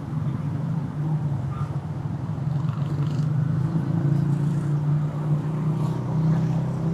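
Steady low drone of a motor vehicle's engine in city street traffic, holding even throughout with a slight rise in level about a second in.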